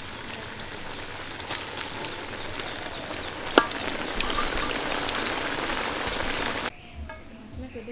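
Potato sticks deep-frying in hot oil in a large metal wok: a steady sizzle full of small crackles, growing louder about four seconds in. A metal spatula stirring the fries gives one sharp clink against the pan about three and a half seconds in, and the sizzle cuts off suddenly near the end.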